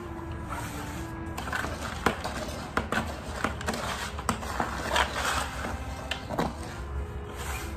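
Background music with a simple melody over repeated scraping and knocking of a tool stirring concrete mix in a plastic bucket.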